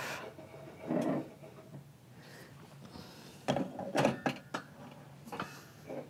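Metal espresso portafilter being fitted into the group head of an Ascaso Dream Up espresso machine and twisted to lock: a short cluster of metal clicks and knocks in the middle, with a softer handling noise about a second in and one more click near the end.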